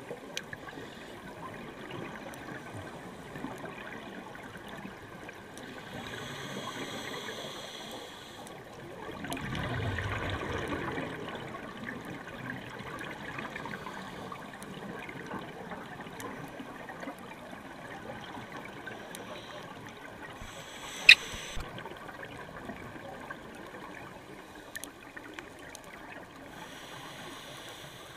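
Underwater ambience picked up by a dive camera in its housing: a steady watery hiss, broken by a scuba regulator's breathing. An inhalation hiss comes about six seconds in, followed by a louder rush of exhaled bubbles, and another inhalation hiss comes near the end. One sharp click sounds about three-quarters of the way through.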